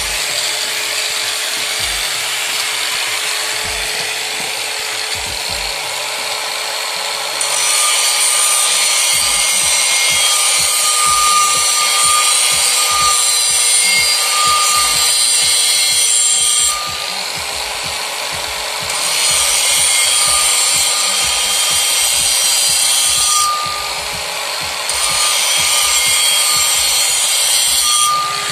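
Angle grinder with a wire cup brush running against a brake drum, scrubbing the metal. The scrubbing gets louder for three long stretches, from about 8, 19 and 25 seconds in, easing off in between as the brush is lifted.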